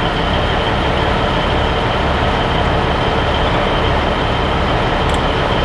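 Heavy diesel truck engine idling steadily: a low, even drone with a faint steady high-pitched whine above it.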